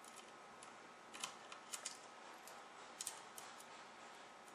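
Faint, sharp small clicks and taps of laptop parts being handled and fitted by hand, the motherboard and its heatsink. They come in two short clusters, about a second in and again about three seconds in, over a steady low hiss.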